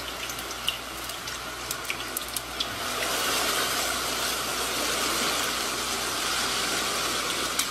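Muddy floodwater rushing down a street in a steady torrent, a dense hiss that grows louder about three seconds in.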